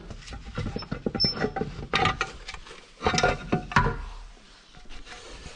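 A Vespa GTS 300's transmission belt cover being worked loose and pulled off the engine. It makes a series of knocks, scrapes and clatters of metal parts, loudest between about two and four seconds in and quieter after that.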